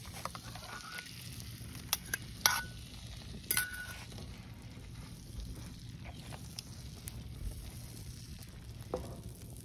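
Kitchenware clinking and knocking, several sharp clinks in the first few seconds, some with a brief ring like a cup or dish, over a steady low sizzling hiss.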